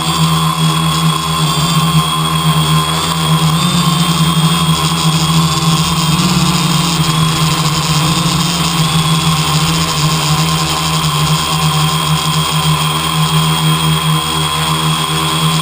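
A steady machine drone: a constant low hum with fixed, thin higher whining tones.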